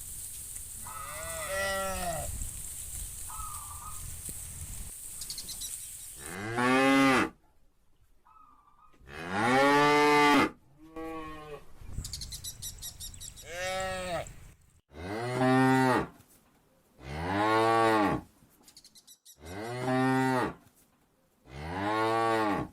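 Cows mooing, one after another: a fainter moo early on, then a run of about seven long, loud moos, each rising and falling in pitch, spaced every couple of seconds.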